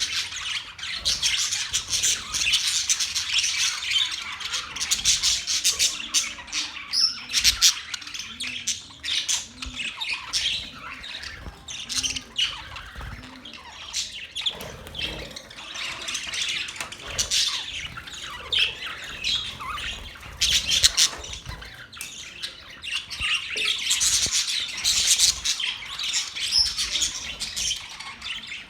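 A flock of budgerigars chattering, with many chirps and squawks overlapping without a break and swelling louder every few seconds.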